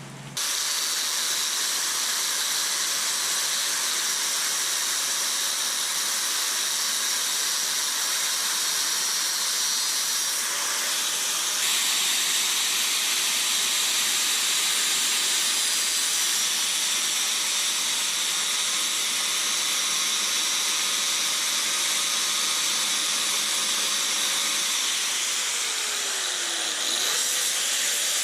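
A power tool running steadily with a loud, even hiss. Its faint motor whine dips in pitch and comes back up once near the end.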